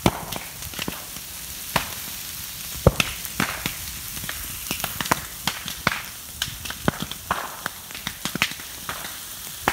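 Dry bamboo litter and undergrowth burning in an open grass fire, crackling with irregular sharp pops over a steady hiss. The loudest pop comes about three seconds in.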